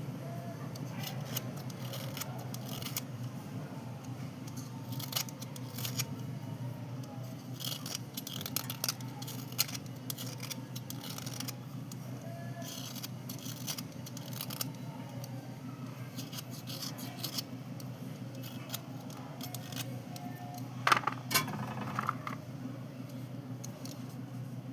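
Slate pencils and chalk pieces being handled and scraped dry: short scratchy clicks and light taps. A louder clatter comes a little past three-quarters of the way through.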